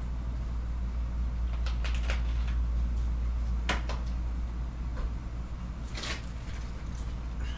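Scattered clicks and knocks of small objects being handled, over a steady low hum. There are about five short knocks in all, the sharpest near the middle and a quick cluster about six seconds in.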